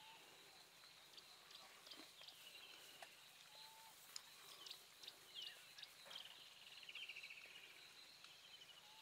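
Near silence: faint high animal chirps and short whistles, with a rapid trill about six seconds in, over a steady high-pitched hum and a few soft clicks.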